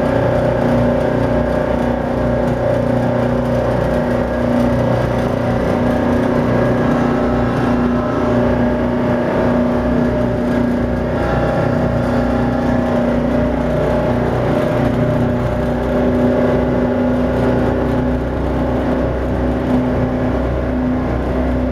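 Tugboat's diesel engine running steadily under way, a constant-pitch drone heard from aboard, over the rush of churning water.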